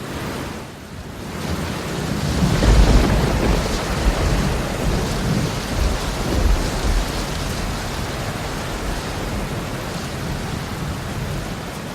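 Rain falling steadily with thunder: a deep rumble builds about two seconds in and dies away after about seven, while the hiss of the rain carries on.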